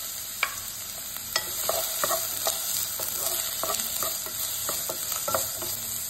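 Chopped onions sizzling in hot coconut oil in a non-stick pan as a spatula stirs them, with a steady hiss and a dozen or so short clicks and scrapes of the spatula against the pan.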